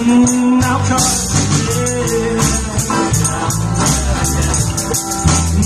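Band music: an instrumental passage of a song, with a bass line, held melodic notes and a steady percussion beat.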